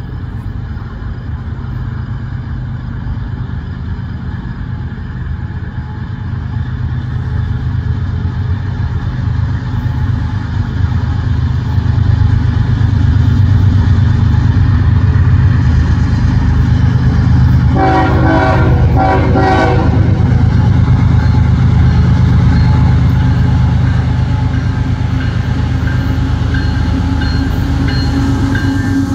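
CSX diesel locomotives pulling a freight train, their engine rumble growing steadily louder as they approach. The horn sounds briefly about two-thirds of the way through.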